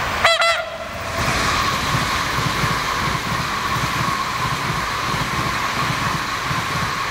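Hyundai Rotem HRCS2 electric train running past and away, a steady rumble of wheels on rail with a held high tone and low irregular clatter. A short double honk-like call cuts in about a third of a second in and is the loudest moment.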